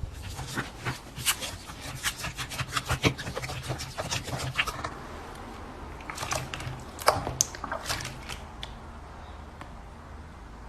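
Crunchy slime being squeezed and worked by hand, giving a dense run of sharp crackles and crunches. They thin out about five seconds in, come again in a cluster around seven seconds, then grow sparser and softer.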